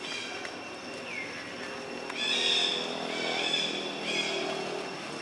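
Young macaques giving several short, high-pitched squeaks and calls, some gliding in pitch, the loudest about halfway through.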